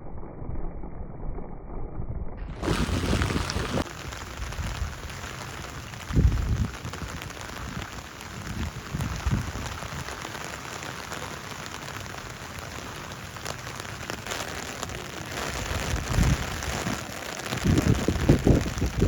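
Steady heavy rain falling, with several low rumbling gusts of wind buffeting the microphone. The sound is dull and muffled for the first couple of seconds, then opens up.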